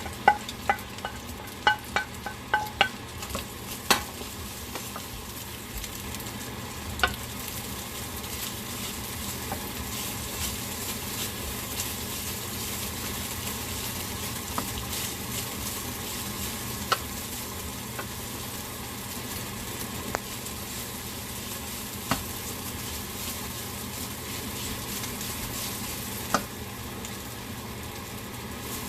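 Leftover rice frying in a hot oiled pan with egg, garlic and red pepper, sizzling steadily as it is stirred with a utensil. A quick run of sharp, ringing knocks of the utensil against the pan comes in the first few seconds, then single knocks every few seconds over the sizzle.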